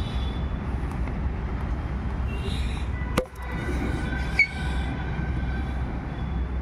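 Steady low rumble like passing trains or traffic, with a sharp knock about three seconds in and a shorter one about a second later.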